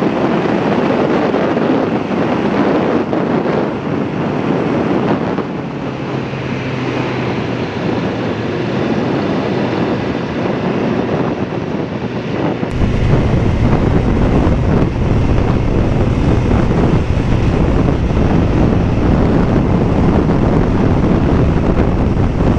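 Motorcycle ridden at speed, its engine mostly buried under heavy wind rush on the microphone. About halfway through, the wind buffeting suddenly gets much heavier and deeper.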